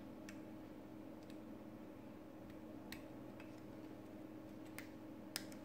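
A few faint, scattered plastic clicks as a SIM card is pushed into a smartphone's side slot and the slot's flap is handled, the sharpest click near the end, over a low steady hum.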